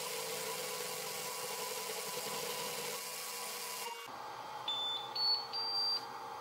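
Flashforge Adventurer 5M Pro 3D printer running with a steady hum while printing, which drops off about four seconds in as the print ends. Then three short rising beeps, the last one longest: the printer's signal that printing is complete.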